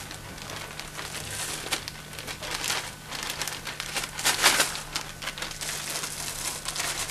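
A clear plastic bag being handled, opened and tipped up, giving irregular crinkling and crackling, loudest about four seconds in.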